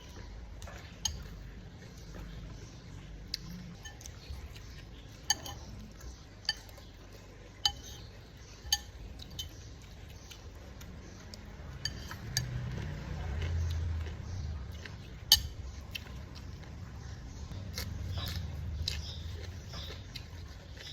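Eating utensils clinking against dishes now and then, about eight sharp separate clinks, the loudest about fifteen seconds in, over soft low eating noise.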